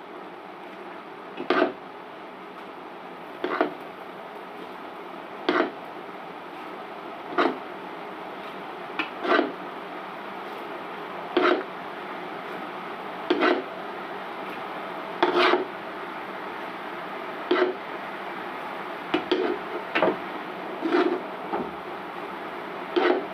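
A spatula scraping and knocking against the bottom of a cooking pot about every two seconds as the chicken keema and potato filling is stirred, over a steady sizzle of the mixture cooking off its water.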